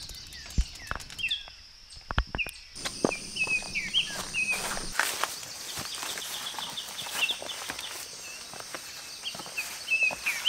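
Footsteps and scuffs of hikers climbing over granite boulders and dry ground, scattered short knocks. Small birds chirp throughout in short repeated high notes.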